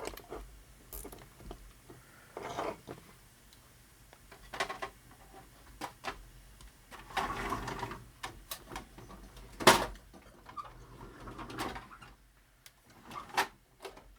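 Scattered clicks and rustles of small plastic robot parts and zip ties being handled on a workbench, with one sharp click about ten seconds in.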